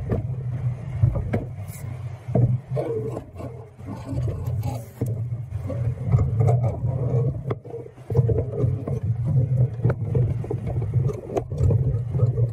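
A long metal pipe being pushed up along a wooden utility pole, scraping and knocking against it in short irregular clicks, over a loud, uneven low rumble.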